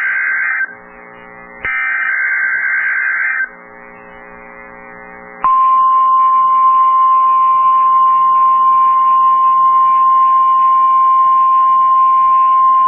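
NOAA Weather Radio emergency alert: two short bursts of SAME digital header data tones, the coded alert that switches on weather radio receivers. About five seconds in, the steady 1050 Hz warning alarm tone comes on, signalling a warning.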